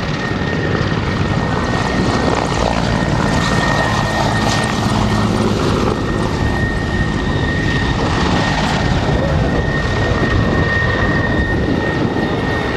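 Mil Mi-24 Hind helicopter in flight: its rotor and twin turboshaft engines make a loud, dense, steady noise, with a high turbine whine held on one pitch.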